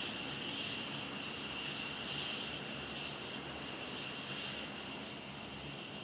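F-15E Strike Eagle's jet engines idling on the ground: a steady high-pitched whine over a hiss, with a low rumble beneath.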